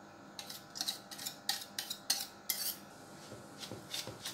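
Steel kitchenware clinking and scraping against a steel mixing bowl as mango pulp is emptied into it: a quick run of about eight sharp clinks in the first two and a half seconds, then a few softer taps.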